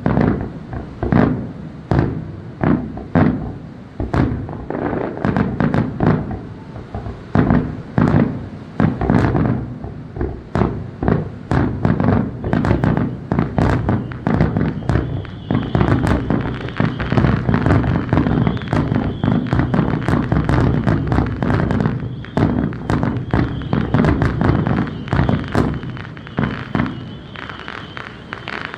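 Aerial fireworks bursting in a rapid, dense barrage of booms and cracks, several a second, thinning out near the end.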